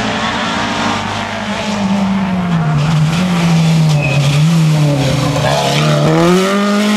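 Mk2 Ford Escort rally car's engine at full stage pace, its revs dipping and wavering through the middle and rising again near the end, with heavy road and tyre noise.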